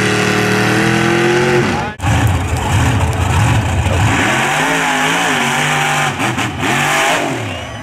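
Mega truck engine held at high revs with a steady note, rising slightly before it cuts off abruptly about two seconds in. Then a mega truck's engine revs up and drops back again and again over a rushing noise of its big tyres throwing mud.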